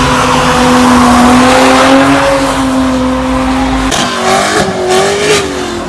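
Car engine held at high, steady revs with tyre noise, as in a burnout. About four seconds in, the revs break and drop, and the engine note falls away.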